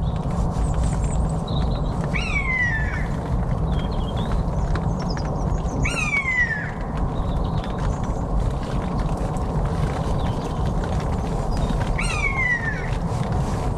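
Common buzzard calling three times, each a clear mewing cry that falls steeply in pitch, spaced about four and six seconds apart, over a steady low rushing background. Faint high chirps of small birds come in between the calls.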